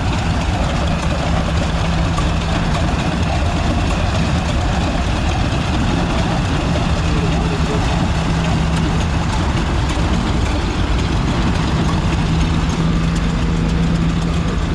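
Engine machinery running steadily, with a constant low hum under a dense mechanical noise.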